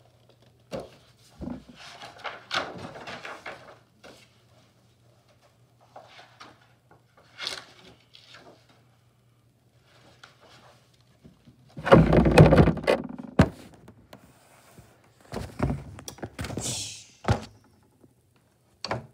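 Handling noise: scattered thunks, knocks and rustling as the camera and toys are moved about, with one longer, louder bump about twelve seconds in. A faint steady hum sits under the first half.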